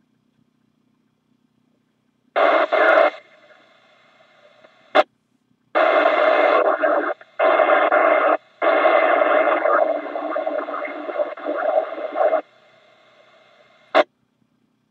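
Amateur radio receiver on a 6-meter repeater: several bursts of scratchy noise as stations key up to check in, the longest lasting nearly four seconds, with short sharp clicks about five seconds in and near the end. The repeater is scratchier than usual, so the check-ins are hard to make out.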